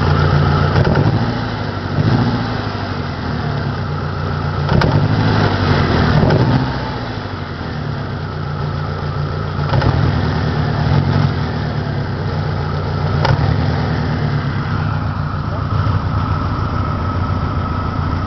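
1993 Saturn SW2's 1.9-litre DOHC four-cylinder engine running in park with a misfire and low power. The steady idle is broken several times by short revs that rise and fall in pitch.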